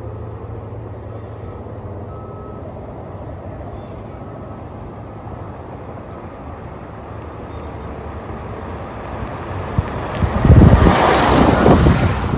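2016 Ford F-150 pickup with the 3.5L EcoBoost V6 driving up, a low steady hum that slowly grows louder, then passing right over a microphone at road level about ten seconds in with a loud rush of engine and tyres.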